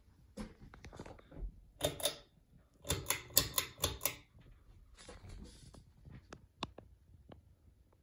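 Ceiling fan pull-chain switches being worked: sharp clicks with the metal bead chains rattling, in several quick clusters, then a few single ticks near the end.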